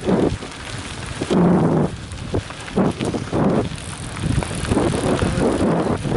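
Mountain bike riding fast over a gravel dirt track: tyres crunching and the bike rattling over bumps in uneven bursts, with wind buffeting the rider's camera microphone.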